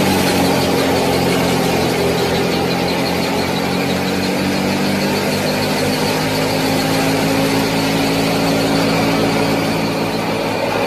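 Small motor running steadily, a constant hum with a faint whine over it.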